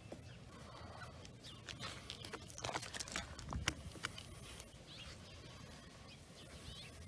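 Plastic body-filler spreader scraping and tapping as it smooths filler over a dashboard: a cluster of quick scrapes and clicks a couple of seconds in, loudest near the middle, then quieter strokes.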